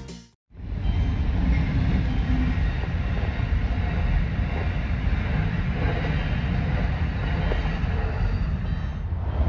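Amtrak passenger train cars passing at speed: a steady rumble of wheels on rail that sets in about half a second in.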